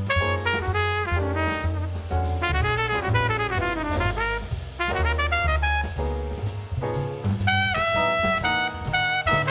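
Live jazz combo: a trumpet solos in quick runs of notes, holding a few longer notes near the end, over upright bass and a drum kit's cymbals.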